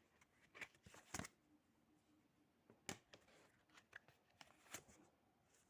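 Near silence broken by a few faint, short clicks and soft rustles of tarot cards being handled.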